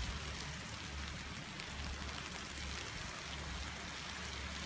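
Wind rumbling on a phone's microphone over a steady hiss, with faint scattered ticks from heavy falling snow.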